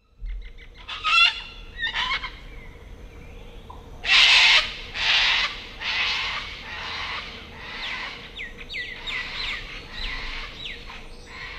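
Laughing kookaburra calling: a few short chuckles, then a loud run of harsh laughing notes about one a second, which turn into quicker falling hoots near the end.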